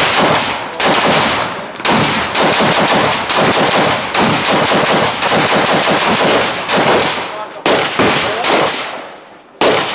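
An M1A SOCOM rifle in 7.62×51 mm firing loud shots in rapid semi-automatic succession, roughly one every half-second to second. Each shot rings out and runs into the next, over steady gunfire from other shooters on the line, and a last shot comes near the end.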